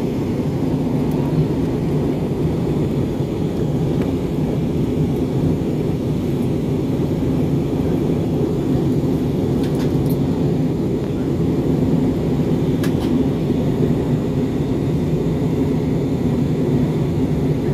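Steady cabin noise of a jet airliner in cruise, a low, even rush of engines and airflow heard from inside at a window seat. A couple of faint clicks come near the middle.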